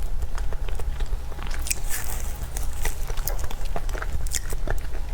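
Close-miked ASMR eating sounds: a person biting and chewing food, with many small irregular mouth clicks, over a steady low hum.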